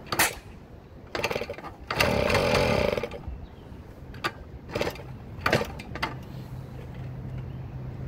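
1977 Yamaha GT80's single-cylinder two-stroke engine sputtering: a few quick pops, about a second of firing and running, then more pops as it fails to keep going. The owner puts the rough, unwilling running down to a carburetor that needs cleaning and a poorly grounded coil.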